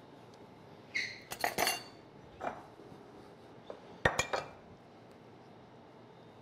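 Cookware clattering: a few sharp clinks and knocks from a spatula working in a frying pan and a glass pot lid being handled, some with a brief metallic ring. They come about a second in, again around a second and a half, once more near two and a half seconds, and in a cluster about four seconds in.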